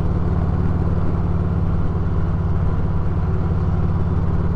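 Harley-Davidson V-twin motorcycle engine running steadily at a constant cruising speed, heard from the rider's seat, with no change in revs.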